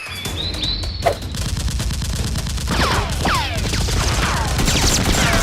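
Rapid, continuous gunfire, a dense rattle of shots, with several short falling whistling sounds over it, as in an action-film shootout sound effect.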